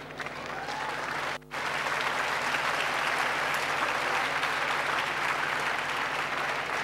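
Audience applauding: many people clapping in a steady, dense patter, with a brief break about a second and a half in.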